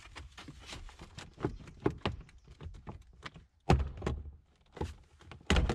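Plastic clicks and knocks as the clip-held left A-pillar trim of a Daihatsu Move Canbus is pulled off by hand, its retaining clips letting go. There are two louder thunks, about four seconds in and near the end.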